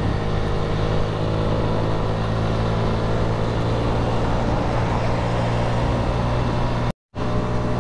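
Honda CG 125's single-cylinder four-stroke engine running at a steady highway cruise, heard from the rider's seat with wind and road noise over it. The sound cuts out completely for a moment about seven seconds in.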